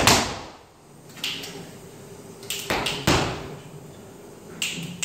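Flamenco dancer's shoes stamping on the stage floor in scattered footwork strikes, with a loud stamp at the start, another about three seconds in, and a quick run of strikes near the end, separated by pauses.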